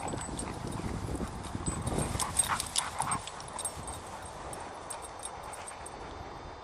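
A dog whining briefly about two to three seconds in, among a run of light clicks and taps.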